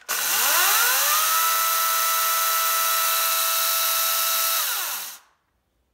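Einhell GE-LC 36/35 Li cordless chainsaw's brushless motor and chain running free with no load: a whine that rises as it spins up over about a second, holds steady for about three and a half seconds, then falls away as the saw coasts to a stop.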